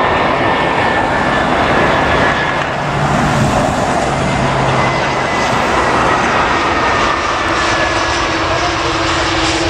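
Airliner's engines running loudly as it passes, a steady roar with a faint high whine that slowly drops in pitch.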